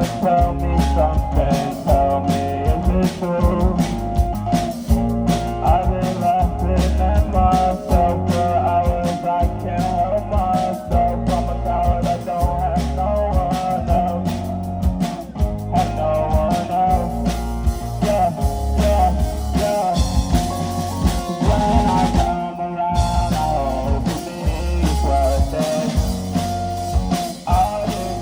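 Rock band playing: electric guitar over bass and a drum kit keeping a steady beat.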